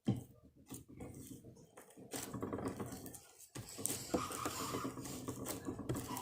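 Homemade slime being squeezed and poked by hand, giving a string of irregular wet clicks and crackles.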